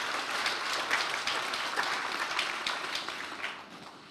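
An audience applauding, many hands clapping together, dying away near the end.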